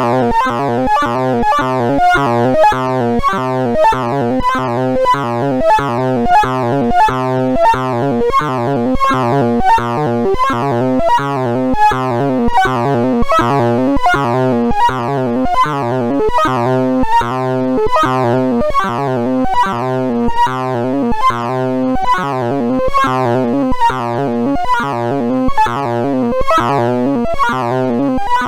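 Sound of Sorting sonification of a random sort: a fast, continuous stream of short synthesized beeps jumping between pitches, each pitch set by the value of the array element being accessed, over a steady low drone.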